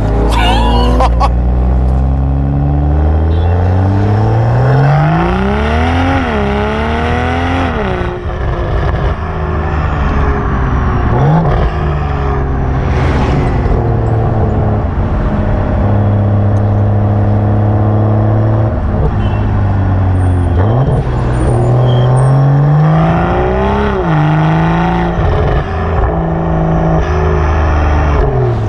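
BMW M340i's B58 3.0-litre turbocharged straight-six, breathing through a Milltek downpipe and full exhaust system, pulling hard through the gears: the revs climb and drop sharply at each upshift several times, with a steadier stretch of cruising in the middle.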